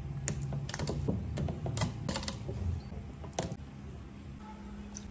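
Garlic cloves being crushed with a kitchen knife on a wooden chopping board: a run of irregular knocks and crunches for about three and a half seconds, then it quietens.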